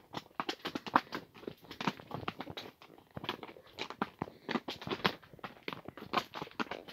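Horse's hooves striking and crunching on a loose, stony trail at a walk: an uneven run of clicks and knocks, several a second.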